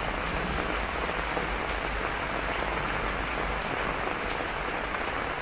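Heavy typhoon rain falling steadily on hard, wet ground, with faint scattered drop ticks.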